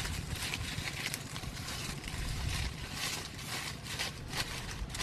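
Dry fallen leaves rustling and crackling as hands rake and gather them up from the ground, in irregular bursts.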